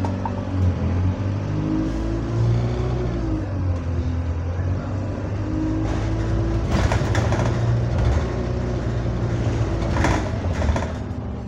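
Double-decker bus engine running on the move with a moaning drone whose pitch rises and then falls about two to three seconds in. Short spells of clatter come about seven and ten seconds in.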